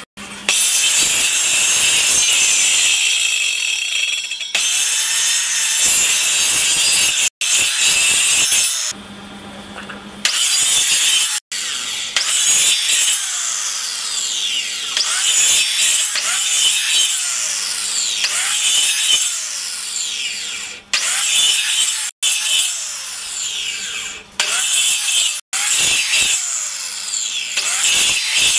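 Handheld circular saw running on a rail jig, its blade cutting across a wood block in repeated shallow passes: a high whine and rasping cut whose pitch keeps dipping and recovering as the blade bites into the wood. The sound breaks off abruptly several times.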